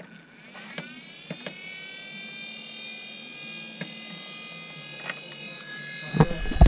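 Lukey 702 hot-air rework station's blower fan starting up, its whine rising in pitch and then holding steady, with several clicks of the station's buttons being pressed. Near the end a loud low rumble of air comes in.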